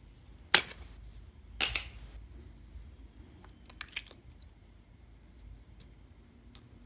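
Thin plastic lid snapping and crackling as it is peeled off a compartmented tray of store-bought slime: one sharp snap about half a second in, then a short crackle about a second later. A few faint clicks and squishes follow as the slime is pulled out of the tray.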